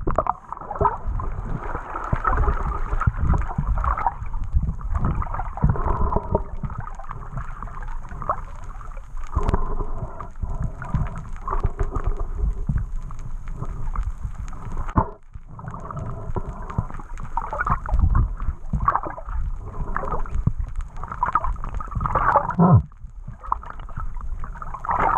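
Muffled underwater water noise: continuous swishing and gurgling of water moving around a swimming spearfisher, with a brief drop in level about 15 seconds in.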